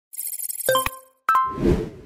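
Short logo-intro sound effect: a high sparkling twinkle with a few bright chime notes, a second chime just past a second in, then a low whoosh that swells and fades.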